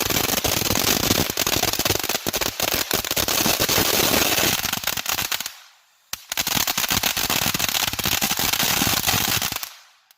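Sky King 'Ghosted' fountain firework crackling loudly in a dense, rapid stream of pops. The crackling dies away about five and a half seconds in, and after a single pop it starts up again for a few seconds before fading out near the end.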